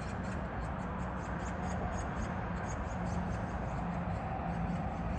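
Steady wash of distant city traffic with a low hum that comes and goes, and faint, quick high-pitched chirps repeating several times a second.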